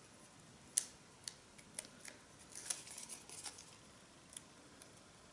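Faint, crisp ticks and crackles of a paper backing strip being peeled off double-sided adhesive tape on embossed cardstock, in short irregular bursts with the sharpest tick about a second in.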